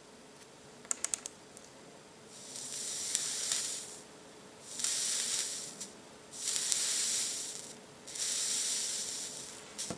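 The freshly built 1.3-ohm coil of a rebuildable vape atomizer fired in four pulses of about a second each, sizzling and hissing while it gives off vapour: the coil being broken in. A few quick clicks come about a second in.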